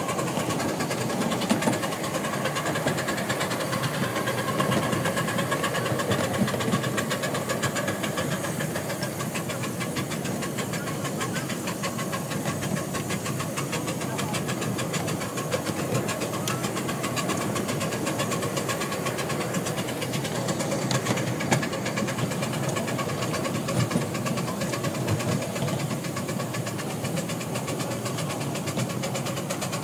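Miniature steam locomotive working hard as it hauls a loaded passenger train: a rapid, steady exhaust beat and steam hiss, mixed with the wheels running on the rails.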